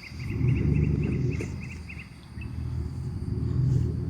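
A vehicle's engine running low and steady as it eases forward to pull a tow line taut, swelling in level twice. Birds chirp rapidly over the first two seconds.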